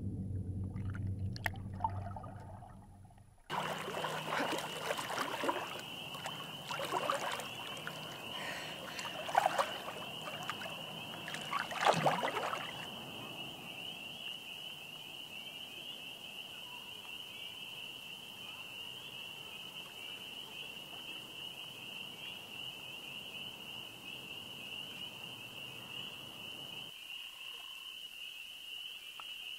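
Background music fades out, then lake water splashes and sloshes for several seconds, loudest twice near the middle. A steady high-pitched chirring chorus runs underneath and carries on alone once the splashing stops.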